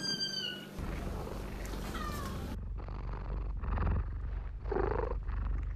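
Domestic cat purring close to the microphone, a deep rumble that swells and fades about twice a second.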